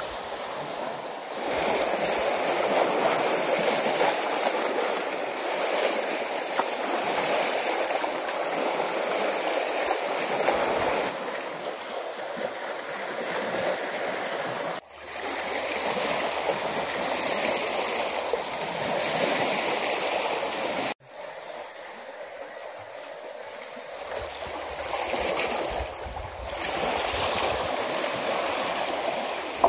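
Small waves lapping and washing against a rocky shore of flat broken stones, a steady wash of water. The sound breaks off sharply and resumes twice, about halfway and about two-thirds of the way in.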